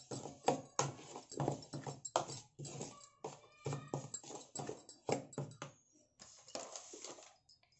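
Steel spoon stirring dry flour in a ceramic bowl, scraping and knocking against the bowl in quick, irregular strokes, with a short pause about six seconds in.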